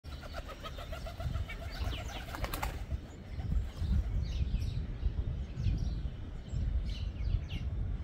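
A white dove's wings flapping as it flies in and lands on a branch: a quick run of wingbeats ending in a few sharper claps about two and a half seconds in. Small birds chirp after it, over a low rumble.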